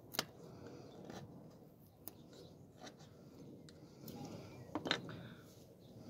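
Faint knife work: a Victorinox Huntsman pocket-knife blade shaving curls off a fatwood stick, a light rustling scrape broken by a few sharp clicks, the loudest just after the start and near the end.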